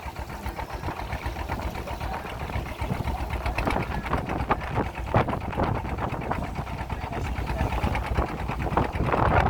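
Small boat's engine running steadily with a fast, rattling chug, growing slightly louder near the end.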